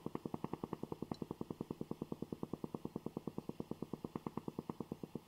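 Coffee maker running with a steady, rapid pulsing of about a dozen even pulses a second.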